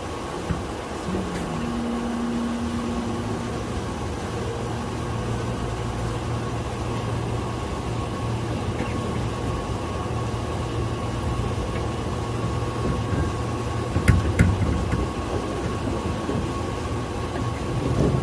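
Tobu 8000-series electric train running, heard from inside the driver's cab: steady motor and wheel noise with a thin steady whine, and a low hum that comes in a few seconds in. A couple of sharp knocks sound about fourteen seconds in.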